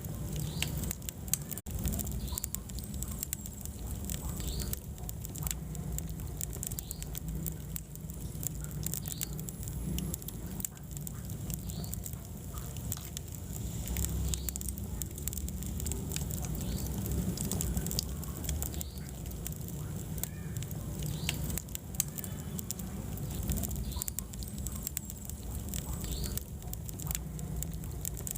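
Wood fire burning in a fireplace: a steady low rumble of flames with frequent crackles and sharp pops from the burning logs.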